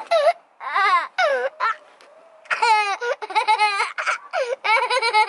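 A young boy laughing and giggling in quick high-pitched bursts, with a short pause about two seconds in.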